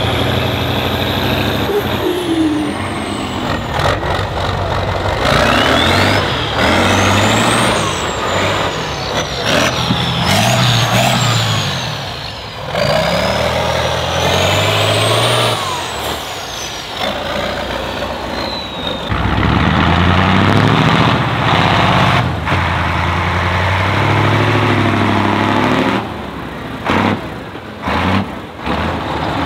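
Heavy six-wheel-drive trial truck's diesel engine, revved hard again and again as the truck works through sand, its pitch climbing and dropping with each push. A high whistle rises and falls with the revs in the first half, and the sound breaks off abruptly a few times near the end.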